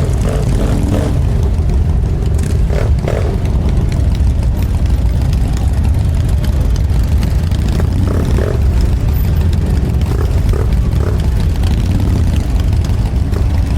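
Motorcycle running steadily on the road, a continuous low rumble with wind noise on the microphone.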